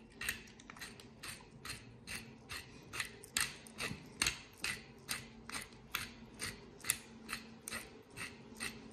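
Hand-twisted pepper mill grinding black peppercorns: an even run of short rasps, about four a second.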